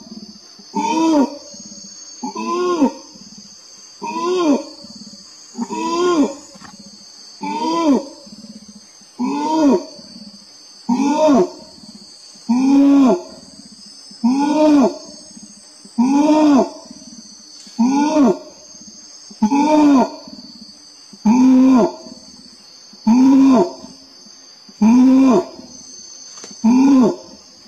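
Adult male orangutan giving a long call: a series of loud pulsed calls, each rising then falling in pitch, repeating about every 1.7 seconds. A steady high drone of insects runs underneath.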